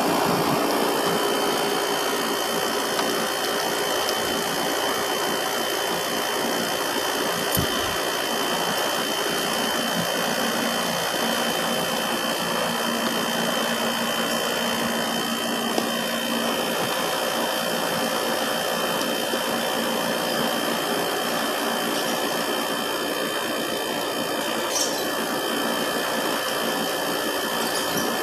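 Air-conditioner unit running: the rotary compressor humming with a few steady tones over an even rush of condenser-fan air, while the system is being charged with refrigerant through the low-side gauge.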